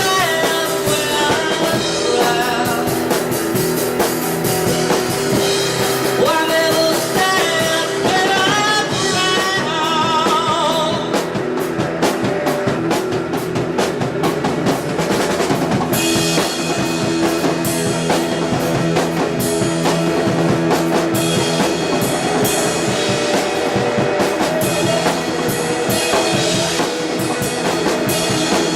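A rock band playing: drum kit with cymbals and guitar, with wavering melodic lines, sung or played, over the first part.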